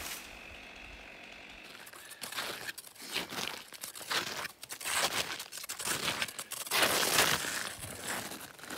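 A person walking in snow: irregular crunching footsteps and the rustle of a stiff work jacket, starting about two seconds in after a quiet start.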